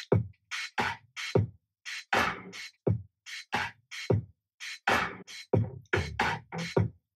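Music playing from an Apple HomePod mini smart speaker: a drum-machine beat with deep kick drums that drop in pitch and sharp high hits, about two beats a second, without singing.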